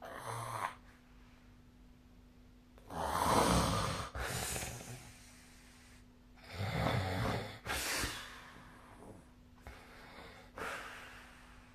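A sleeping person snoring: rough, rumbling snores come about every three to four seconds, the loudest about three seconds in, with a smaller one near the end.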